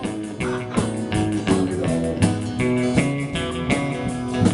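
A band playing a rockabilly number, guitar to the fore over a steady beat.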